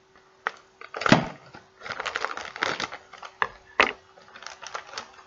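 Puffed-up, rock-hard chip bag of Taro Net seaweed-flavoured taro chips crinkling and crackling as it is handled and pulled open, in a run of irregular sharp crackles, the loudest about a second in.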